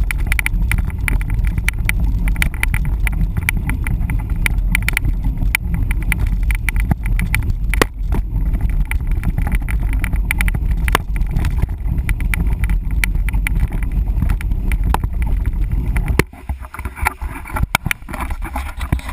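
Mountain bike riding over a rough trail: a heavy low rumble, likely wind on the microphone, with constant clattering and rattling from the bike. About 16 seconds in the rumble drops away abruptly, leaving lighter rattling.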